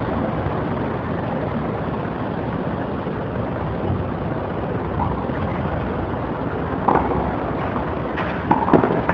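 Tennis ball struck by rackets on a clay court: a sharp hit about seven seconds in, then a couple more quick hits just before the end as the rally gets going, over a steady background noise.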